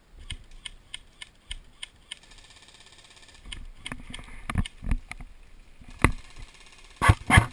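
Regular footsteps through brush, about three a second. They turn much louder and quicker near the end, as if breaking into a run.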